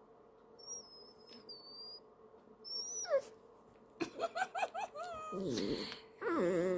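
A toy poodle whining: a thin high whine early on, a falling whine about three seconds in, then a quick run of short whimpering yips and louder cries in the second half. It is the sulking protest of a dog being told goodbye.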